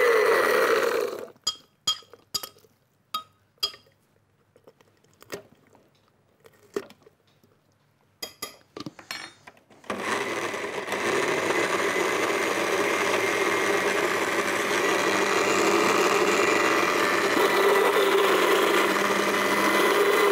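Countertop electric blender chopping a thick green herb chutney, cutting off about a second in. Several seconds of sharp clicks and knocks follow, then the blender starts again about halfway through and runs steadily.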